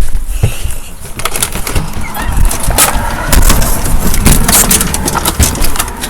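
Footsteps and scattered knocks and clicks from handling, with a low rumble of handling noise on the microphone, as someone walks while carrying the recording laptop.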